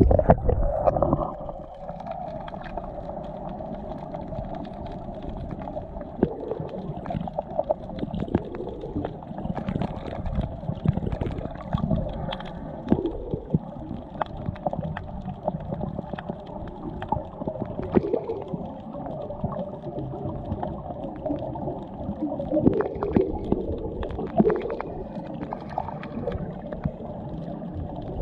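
Muffled underwater sound recorded with the camera submerged: a steady low rumble of water with many scattered clicks and crackles.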